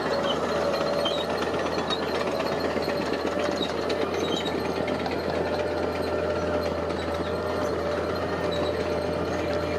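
Diesel engine of heavy construction machinery running steadily, with a fast mechanical rattle and a constant hum over it.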